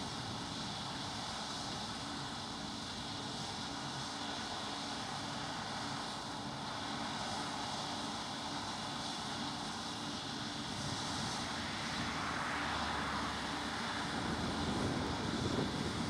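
Combine harvester at work: a steady engine and machinery drone that grows a little louder near the end.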